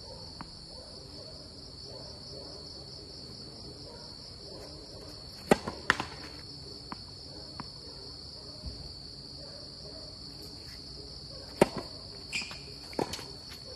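Tennis balls popping off rackets and bouncing on a hard court during a doubles rally: sharp pops about five and a half seconds in and again near the end, with fainter ticks between. A steady high-pitched chorus of crickets goes on underneath.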